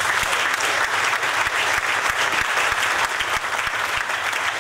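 A room full of people applauding, many hands clapping in a steady, dense patter.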